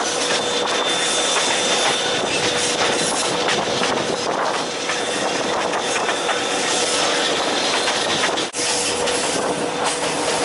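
Passenger train running along the track, a steady loud rush of wheels on rails and air heard through an open carriage window. The sound breaks off for an instant about eight seconds in.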